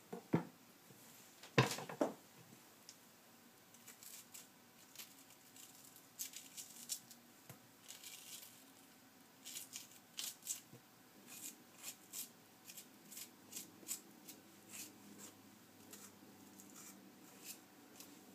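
A few sharp knocks on a wooden cutting board in the first two seconds, then a metal spoon scraping the seeds out of a halved zucchini in short, quiet strokes, about two a second.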